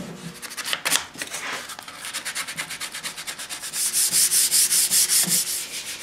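Sandpaper being rubbed by hand over a bare wooden chair seat in quick, even back-and-forth strokes. The scratching grows louder and brighter about four seconds in.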